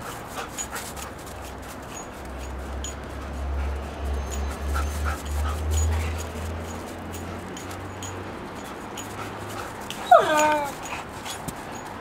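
German Shepherd dog giving one short, loud yelp that falls in pitch, about ten seconds in. Before it there is a low rumble and scattered small clicks.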